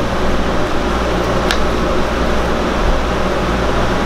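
Steady hum and hiss of a running fan, with a low steady drone underneath and one faint click about one and a half seconds in.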